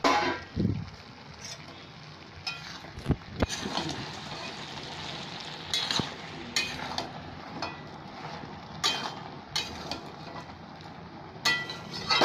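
A metal spatula scraping and knocking against a metal kadai as a prawn and pumpkin curry is stirred, with irregular clinks about once a second over a steady hiss of the curry cooking.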